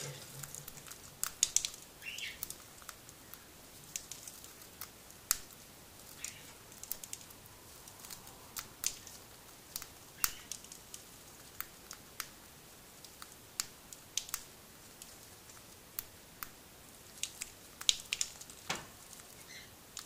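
A cockatiel pecking at a millet spray and cracking the seeds in its beak: irregular sharp little clicks and crackles, a few a second at times, with short gaps between.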